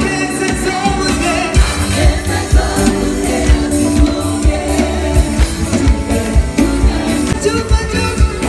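Gospel worship music: singing over a band with a steady drum beat and heavy bass.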